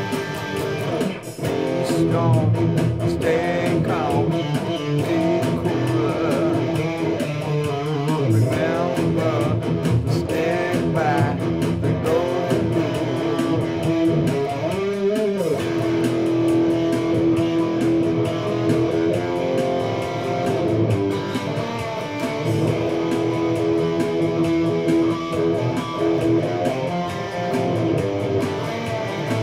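Electric guitar playing an instrumental break in a song, with held notes, string bends and vibrato.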